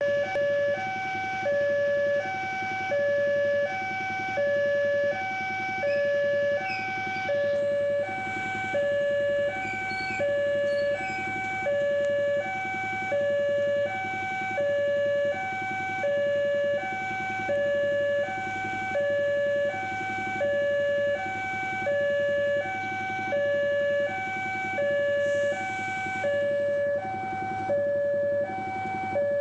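Railway level-crossing warning alarm sounding: an electronic low tone and higher tone alternating steadily, the signal that a train is approaching.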